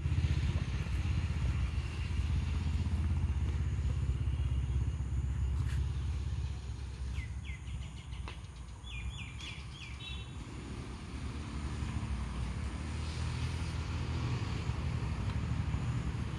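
Steady low outdoor rumble, dipping a little in the middle, with a short run of bird chirps about seven to ten seconds in.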